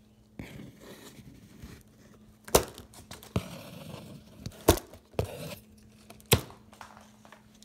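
Folding knife cutting plastic strapping bands on a cardboard box: three sharp snaps as the straps part, with scraping and rustling of the blade and cardboard between them.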